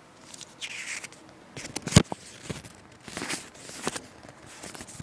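Paper and packaging rustling in short bursts as the contents of a parts box are handled, with one sharp tap or click about two seconds in.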